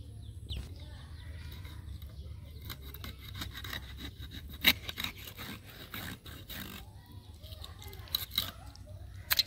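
A small rohu fish being scaled and cut on a boti, the upright curved kitchen blade: irregular scraping of scales and flesh against the metal edge with crisp clicks. The sharpest click comes about halfway through, and a few more come near the end.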